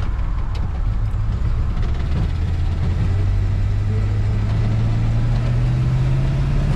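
1973 Chevy C20 pickup's engine heard from inside the cab, running low and then rising slowly in pitch from about two seconds in as the truck pulls away and picks up speed.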